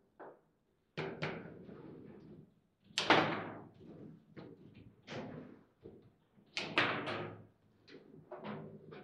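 Table football in play: a string of sharp knocks and clacks as the figures on the rods strike the ball and the ball bangs around the table, the loudest knock about three seconds in.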